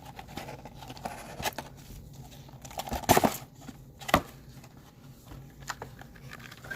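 Crinkling and tearing of packaging as a box of Panini Mosaic basketball trading cards is opened, with scattered sharp crackles; the loudest come a little after three seconds and about four seconds in.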